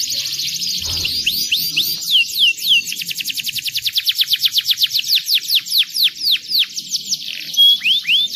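Domestic canary singing: a fast, unbroken trill of high falling notes that slows into a steady run of separate downward sweeps, with a few rising notes near the end.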